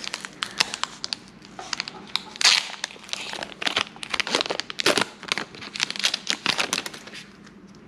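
Foil wrapper of a Pokémon card booster pack crinkling and tearing as the pack is opened and the cards are pulled out, in a quick run of sharp crackles.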